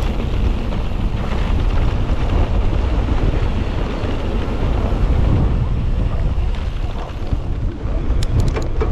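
Wind buffeting the microphone and the rolling rumble of a mountain bike riding fast down a dirt trail. A few sharp ticks come near the end.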